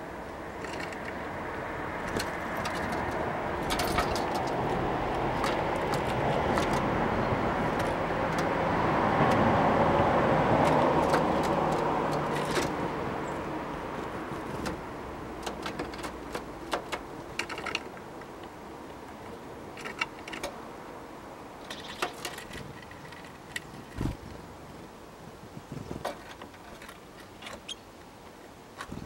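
A car passing on the street, rising to a peak about ten seconds in and fading away. Over and after it come many short, sharp taps and clicks from great tits and blue tits pecking and landing at a wooden bird feeder.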